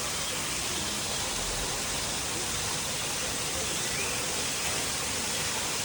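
Steady rushing hiss of falling water from an indoor waterfall, even and unbroken.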